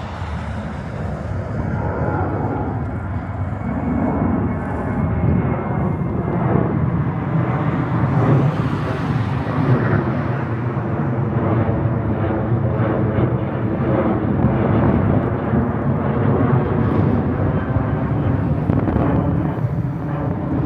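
Jet airliner's engines running as it climbs out overhead after takeoff: a continuous roar that builds over the first few seconds and stays loud.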